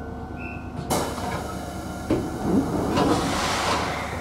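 Electric commuter train standing at a station: a sudden hiss of released compressed air about a second in, a knock about two seconds in, then more air hissing, from the train's pneumatic doors and brakes, over a steady low hum.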